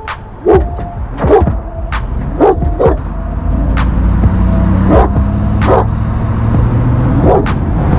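Cane Corso barking repeatedly, about eight sharp barks a second or so apart, over a vehicle engine running underneath that grows louder from about halfway through.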